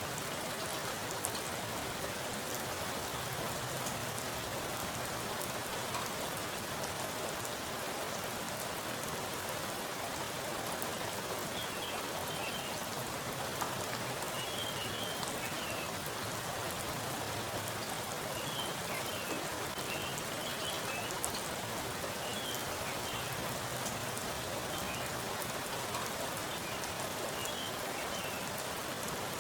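Heavy rain falling onto a pool of standing water: a steady, even patter of drops hitting the surface, with an occasional sharper drip. From about halfway through, faint high chirps come and go above the rain.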